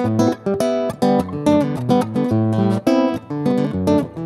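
Solo nylon-string guitar playing an instrumental break: rhythmic strummed chords over a moving bass line, with no singing.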